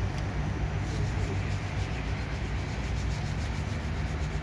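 Steady outdoor noise with a strong low rumble, even throughout and without distinct events.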